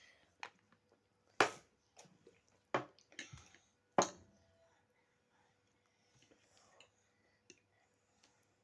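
A person eating chicken macaroni: a handful of sharp clicks and taps, the loudest about a second and a half and four seconds in, with soft chewing sounds between.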